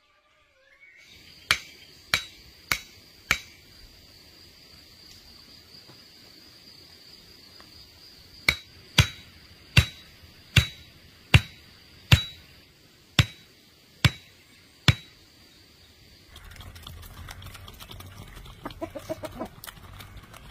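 Sharp, evenly paced knocks, about one every two-thirds of a second, like repeated strikes with a hammer: a run of four, then after a pause a run of about ten. A steady high whine sounds behind them until near the end.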